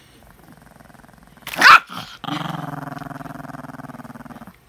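Small long-haired dog growling to guard a package of Reese's cups: a faint low growl, a sudden loud snarling bark about a second and a half in, then a long steady growl that stops shortly before the end.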